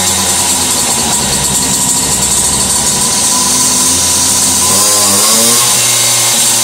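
Two-stroke Mobylette moped engine running at a steady fast buzz, revved up and back down once about five seconds in.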